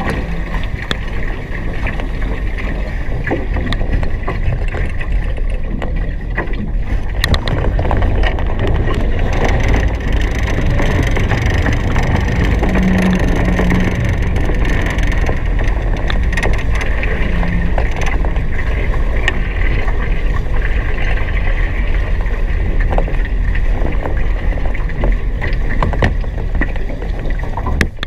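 Hobie Cat 16 catamaran sailing fast: a loud, steady rush of wind and water past the hulls, with scattered short knocks.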